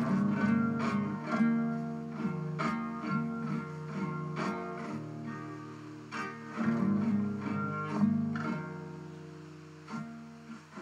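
Background music: plucked guitar picking out ringing notes.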